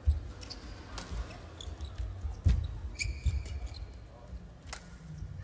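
Badminton rally: several sharp racket strikes on the shuttlecock, with short high squeaks of court shoes on the mat and low thuds of footwork, the heaviest about two and a half seconds in.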